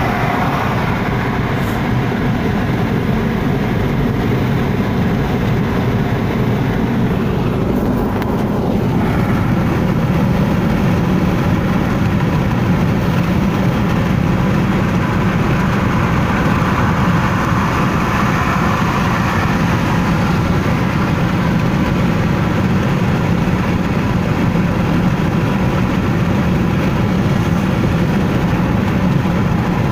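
Steady road noise inside a car's cabin at highway speed, tyre and engine sound together, growing a little louder about nine seconds in.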